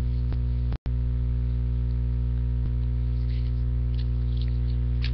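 Steady electrical mains hum with a stack of overtones, with a few faint ticks and soft rustles of trading cards being slid through the hands. The sound cuts out completely for a split second a little under a second in.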